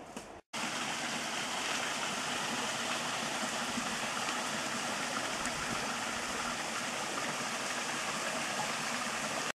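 Steady rush of a flowing stream or cascade, an even wash of water noise without breaks, starting abruptly after a short gap.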